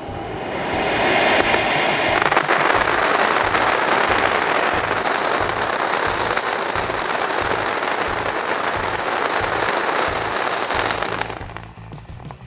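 A lit duck-shaped ground firecracker spouting sparks with a steady hiss, which swells over the first couple of seconds and cuts off near the end.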